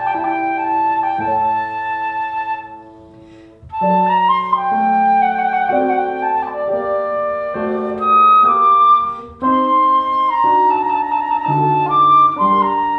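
Concert flute playing a slow classical melody of held notes, with a lower accompaniment part underneath. The music thins to a brief pause about three seconds in, then resumes.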